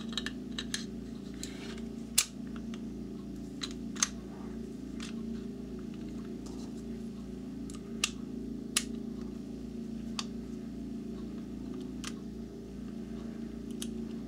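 Sharp clicks of steel 1911 pistol parts being handled as the slide of a Detonics Combat Master is seated on its frame and the slide stop lined up during reassembly, one every second or two, over a steady low hum.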